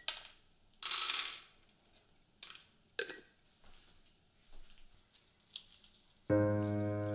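Raw peanuts dropped into an empty stainless steel frying pan: a rattling clatter about a second in, then a few single peanuts clicking on the metal. Background music with held notes starts near the end.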